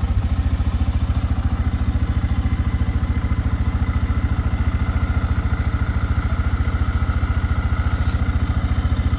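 Four-wheeler (ATV) engine running steadily at a constant low speed, with an even, rapid pulse and no revving.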